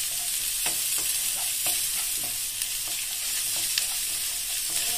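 Sliced onions sizzling in hot oil in a metal kadai, with a wooden spatula stirring and scraping against the pan in irregular strokes about twice a second.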